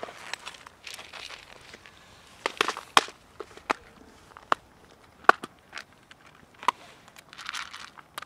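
Irregular sharp clicks and rustling from dry cat kibble and plastic food tubs being handled and set down while cats eat. The loudest clicks come about three and five seconds in.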